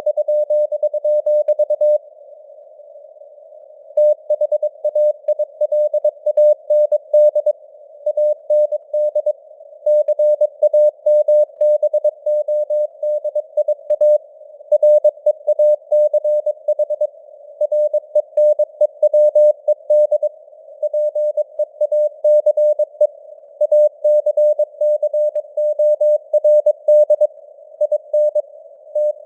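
Morse code sent at 22 words per minute as a single steady beep tone keyed on and off in quick dots and dashes, over a hiss of simulated radio band noise, with the signal strength fading slightly up and down. About two seconds in, the keying stops for roughly two seconds and only the hiss remains, then resumes.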